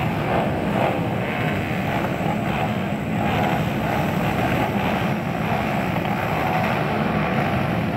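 A pack of motocross dirt bikes running together at the starting gate, their engines making a dense, steady mass of engine noise with small rises and falls as riders blip the throttles.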